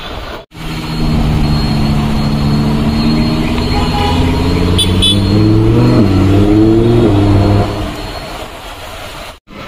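Lamborghini Huracán's V10 engine running loud under throttle, its pitch climbing from about five seconds in and falling away near eight seconds as it comes off the throttle.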